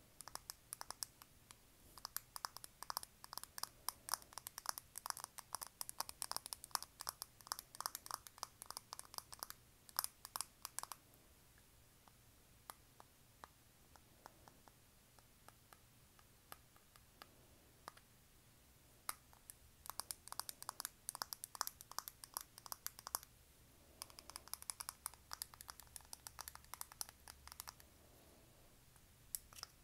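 Long fingernails tapping rapidly on a small white hexagonal product box, many light clicks a second. The tapping runs in a long flurry, stops for several seconds, then comes back in two shorter flurries near the end.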